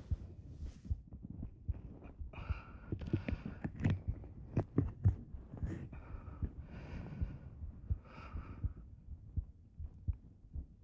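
Close binaural ear-cleaning sounds: soft irregular scratches and deep thumps of an ear pick working at a dummy-head microphone's ear, with three breaths between them.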